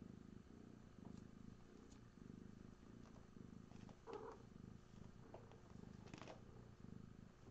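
A cat purring softly and steadily, the low rumble swelling and easing with each breath about once a second. A brief louder noise breaks in about four seconds in.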